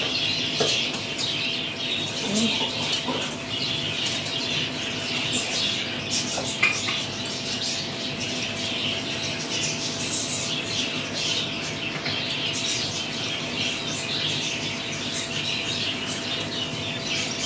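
Many birds chirping and calling continuously, a dense, unbroken chatter of high chirps, over a faint steady hum.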